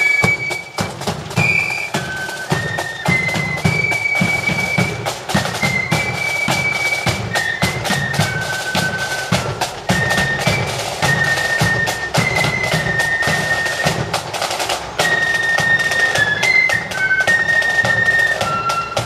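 Marching flute band playing a tune in unison on flutes, with snare drums and bass drum beating a steady marching rhythm.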